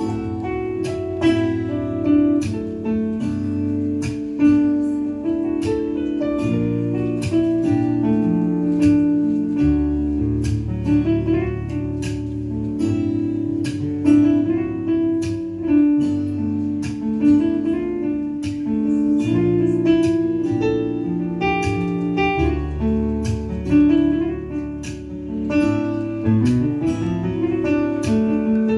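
Solo jazz keyboard playing on a Yamaha synthesizer: a quick stream of struck notes over held chords, with deep bass notes coming in about ten seconds in.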